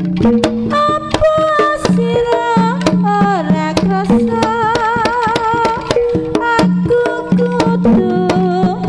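Live Javanese jaranan music: kendang hand drums play a busy rhythm under a wavering melody line and a steady low note, in an instrumental passage between sung verses.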